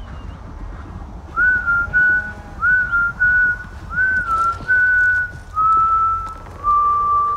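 A man whistling a slow tune. It starts about a second and a half in as a string of held notes, each sliding up into pitch, with the last few lower. A steady low rumble runs beneath.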